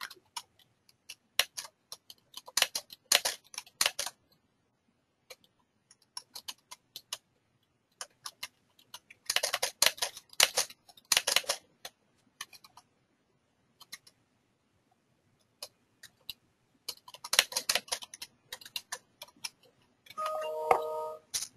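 Computer keyboard typing: bursts of rapid keystrokes separated by pauses, with scattered single key taps. A brief electronic chime of a few notes sounds near the end.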